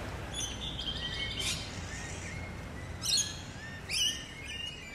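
Songbirds chirping and singing in several short phrases, with little repeated notes in between, over a steady low background rumble.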